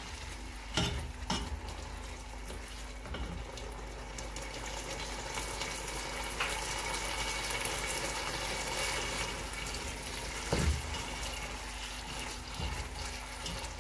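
Tomato sauce with chicken pieces sizzling and simmering in a pot while being stirred with a spatula, with a few knocks of the spatula against the pot, twice near the start and once about ten and a half seconds in.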